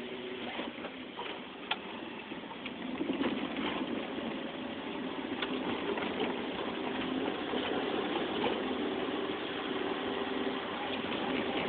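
Car engine running and road noise heard from inside the cabin while driving, growing a little louder about three seconds in, with a few light clicks.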